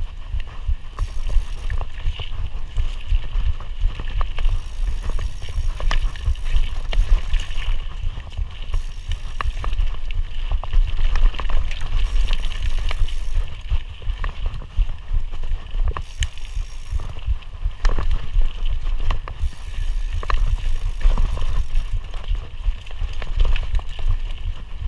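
Mountain bike being ridden along a dirt singletrack, with frequent clicks and knocks as the bike rattles over the trail surface. Wind rumbles on the microphone throughout.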